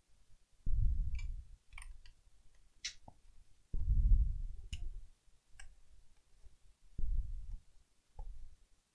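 Laptop hard drive being pushed and seated in its bay in the plastic base by hand. There are three spells of dull low rumble from the handling, loudest about four seconds in, and a scattering of small sharp plastic clicks and taps between them.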